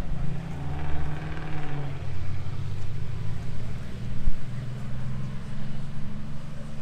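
A car engine idling with a steady low rumble, heard close by. A brief sharp knock about four seconds in.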